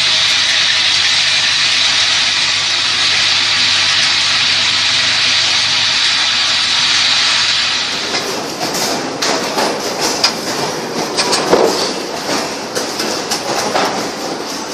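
Automatic transformer soldering machinery running: a steady hiss for about the first half, then irregular clattering and clicking of moving machine parts.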